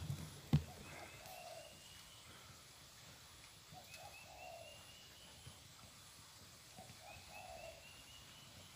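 Faint birds calling: a short low call repeated about every three seconds, with thin, higher chirping notes between. A single sharp click about half a second in.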